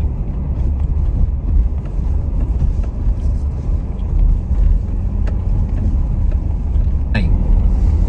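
Car interior noise while driving: a steady low rumble of engine and tyres on the road, heard from inside the cabin.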